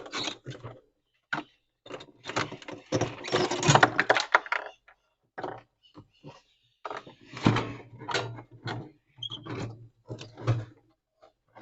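Irregular clicks, knocks and rattles of a screwdriver and loose screws being worked against a refrigerator's plastic interior panel while its Torx screws are taken out.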